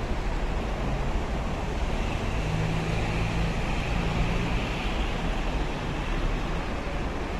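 Steady rumble of street traffic with a low engine hum.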